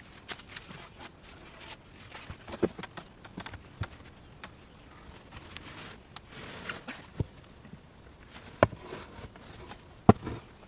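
Scattered sharp knocks and clicks, several seconds apart, over faint rustling.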